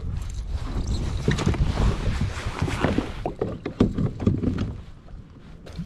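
Kayak being paddled: irregular paddle splashes and knocks on the plastic hull, with wind rumbling on the microphone.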